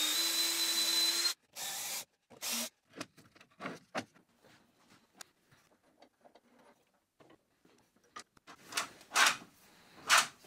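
Cordless drill running steadily for about a second after boring through the cabinet's side panel, then stopping. Scattered light clicks, knocks and rubbing follow as small parts are handled and a pin and knob are fitted into the new hole.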